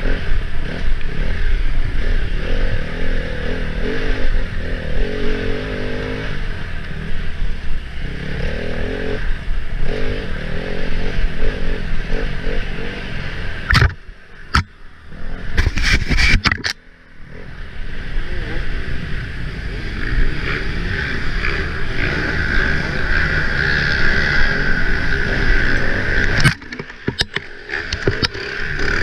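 Enduro dirt bike engine heard close up from on board, running hard with the revs rising and falling as the throttle is worked over rough ground. Around the middle, and again near the end, the throttle is shut briefly and the engine drops off, with sharp knocks from the bike around the first drop.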